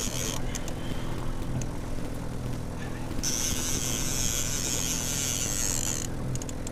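Boat motor running steadily at trolling speed, a low even hum. Over it, a high whirring from a fishing reel being cranked to bring in a hooked fish starts about three seconds in and stops sharply about three seconds later.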